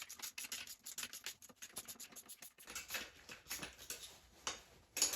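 Socket ratchet clicking rapidly and lightly, about seven or eight clicks a second, as engine bolts are worked loose, with a louder metallic clatter right at the end.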